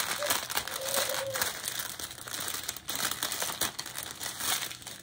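Small clear plastic bags of diamond-painting drills crinkling and rustling as they are picked up and handled.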